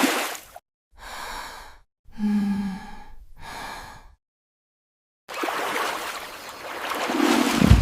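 A cartoon character's breathy gasps and sighs, four short ones, then after about a second of silence a steady rushing noise with a low thump near the end.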